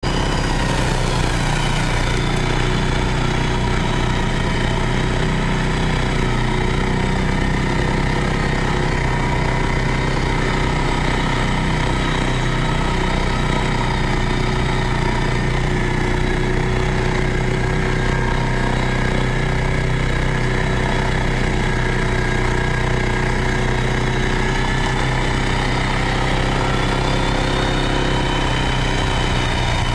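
ATV engine running steadily under way, heard close up from the machine itself, its pitch dropping near the end as it slows.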